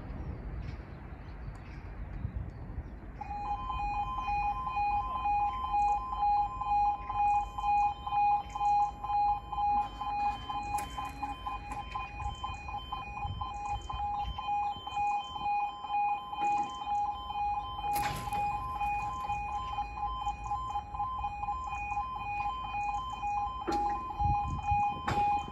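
Level crossing warning alarm, the two-tone yodel alarm of a UK barrier crossing, pulsing rapidly from about three seconds in and cutting off near the end. It warns road users that the barriers are lowering for an approaching train.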